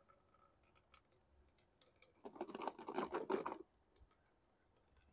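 Scattered light clicks, then about two seconds in a dense clatter lasting just over a second as the small plastic fuel tank of a riding lawn mower, with gasoline sloshing inside, is shaken.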